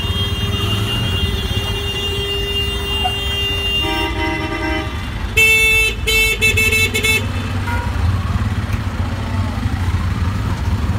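Tuk tuk (auto-rickshaw) engine running in city traffic, with vehicle horns honking. A long steady horn-like tone runs through the first few seconds. Loudest is a string of short, quick horn beeps about halfway through.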